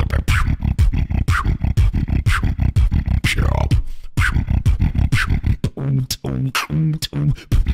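Solo beatboxing: fast, dense vocal percussion over a deep bass line, with a run of short pitched bass notes near the end.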